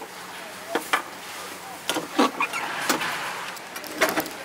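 Cast-iron waffle iron being closed and swung over on its stand: a few metal clanks and knocks, spread about a second apart.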